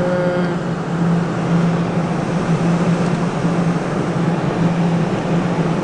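Steady background noise: a constant low hum under an even hiss, with no clear event standing out.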